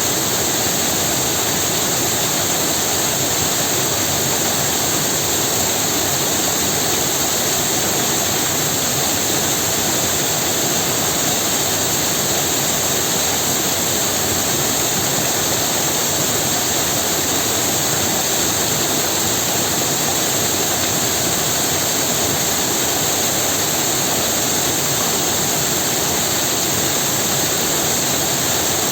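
Waterfall, water falling and rushing in a steady, unbroken roar.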